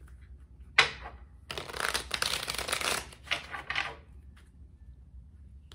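A tarot deck shuffled by hand: a sharp card snap about a second in, then about two seconds of rapid crackling shuffling and a shorter burst after it.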